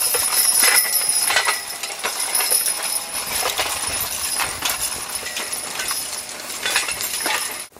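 Draft horses pulling a horse-drawn plow at a walk: harness metal jingling and clinking with their steps, about one and a half clinks a second, along with hoof clops on hard, dry ground. The sound cuts off suddenly near the end.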